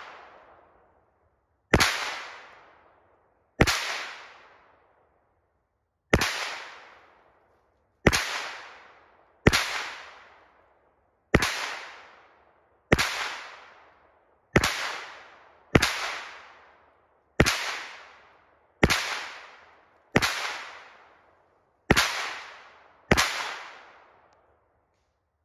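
Kel-Tec Sub-2000 pistol-caliber carbine firing fourteen single shots, one every one to two and a half seconds. Each shot trails off in a fading echo.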